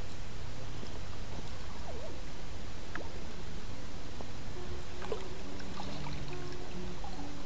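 Water splashing and lapping around a float tube as a hooked fish is brought to the landing net, over a steady low rumble. Guitar music fades in about halfway through.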